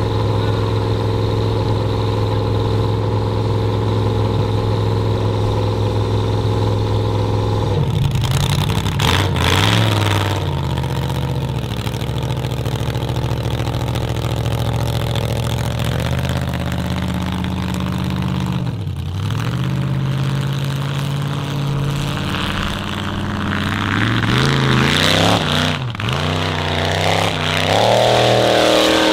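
Formula offroad car's engine held at a steady pitch for several seconds, then revved up and down again and again, with pitch falling away sharply twice in the second half.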